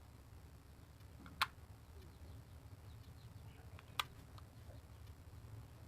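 Two sharp clicks about two and a half seconds apart, with a few fainter ticks between them, over a low steady hum: small plastic items being handled.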